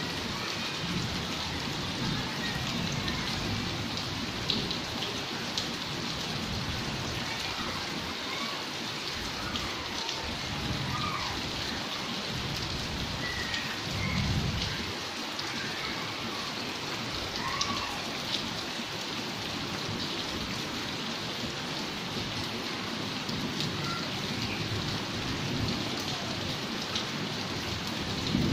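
Steady heavy rain, with scattered drops ticking sharply on the glass window louvres. There is a low rumble about halfway through.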